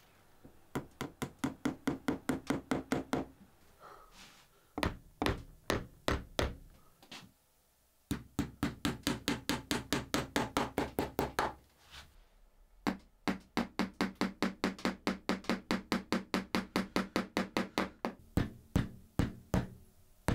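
Small hammer tapping dome-headed upholstery nails into the wooden frame of a chair, through the fabric edge: runs of quick light taps, about seven a second, broken by a few single heavier blows.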